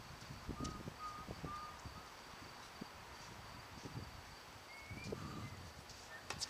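Quiet tennis court ambience with faint taps and footsteps on the hard court and a few short high chirps, ending with one sharp tennis ball strike.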